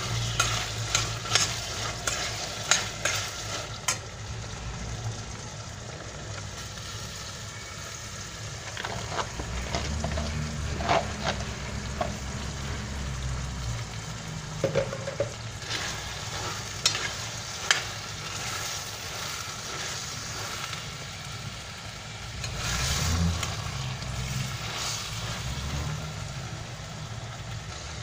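Diced potatoes and chopped green beans sautéing with browned meat and tomato and pepper paste in a stainless steel pot: a steady light sizzle, with a metal spoon clicking and scraping against the pot as they are stirred. The clicks come thickest in the first few seconds.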